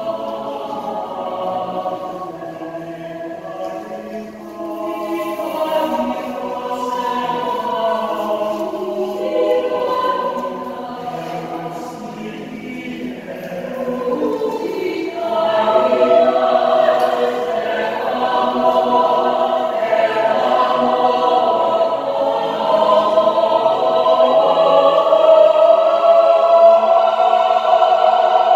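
Mixed choir of men's and women's voices singing sustained notes in harmony, growing louder about halfway through.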